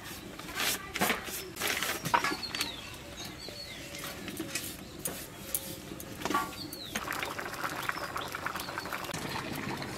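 Pumpkin curry bubbling in a wide kadai over a wood fire, with scattered pops and a denser bubbling crackle in the second half. Birds chirp in short calls throughout.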